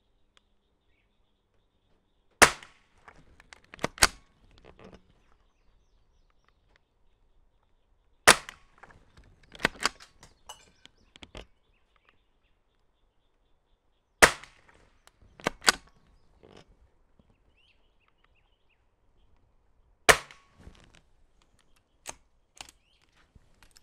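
Four shots from a Marlin Model 60 semi-automatic .22 LR rifle firing CCI Quiet low-velocity rounds, about six seconds apart. Each shot is followed by a few clicks and clacks as the action is worked by hand to extract the case, because these rounds are too weak to cycle the semi-auto action.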